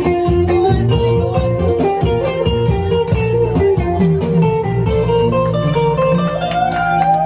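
Live dance music led by an electric guitar playing a melody of sustained notes, over a bass line and a steady beat.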